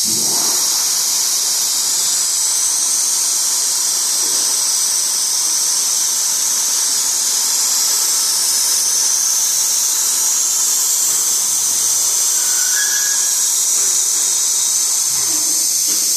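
Air-driven mist coolant sprayer (nebulizer) on a CNC router, hissing steadily as it sprays.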